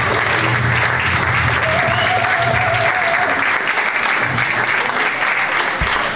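Live audience applauding steadily, over music with a bass line that stops about halfway through.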